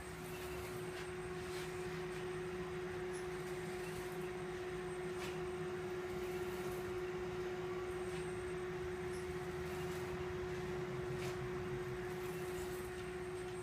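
Magnetic piston engine prototype running slowly under its electrical drive: a steady high whine over a low hum, with a few faint clicks.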